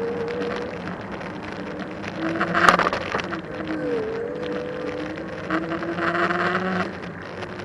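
Electric bike's motor whining while riding, its pitch dipping and rising with speed, over wind and tyre noise. A sharp click comes about two and a half seconds in.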